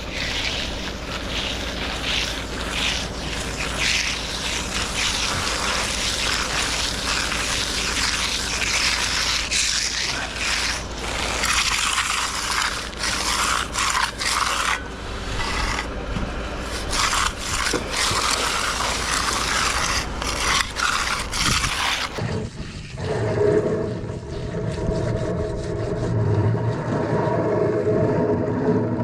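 Hand finishing tool scraping and rubbing across the surface of freshly poured concrete that is stiffening on top, in repeated strokes, with wind rumbling on the microphone. About three quarters of the way through the scraping and wind stop and a lower steady hum takes over.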